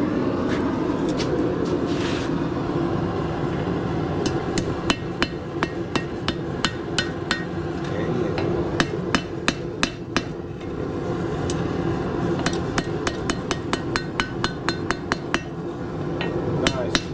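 Blacksmith's hammer striking hot steel on an anvil in runs of blows, about two a second, with short pauses between runs, while the forge runs with a steady roar underneath.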